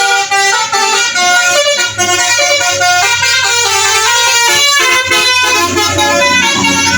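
Basuri telolet horn, a multi-tone musical bus horn, playing a quick melody of short stepped notes, with a steady low hum underneath.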